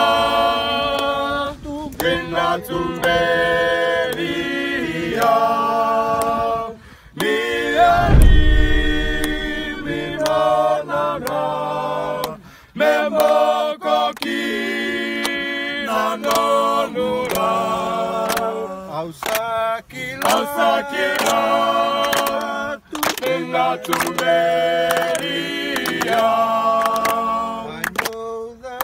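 A group of men singing together a cappella, holding each note for about a second and moving from chord to chord like a hymn or team song. There is a brief deep thump about eight seconds in.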